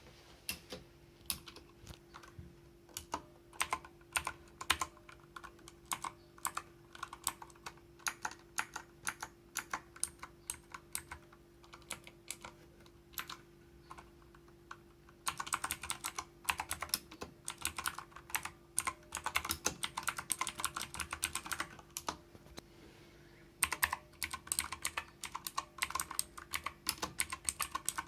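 GameBooster Fire Storm G918 mechanical keyboard with clicky blue switches being typed on: separate key presses at first, then, about halfway through, two fast flurries of typing with a short pause between. A spring noise can be heard in the keys.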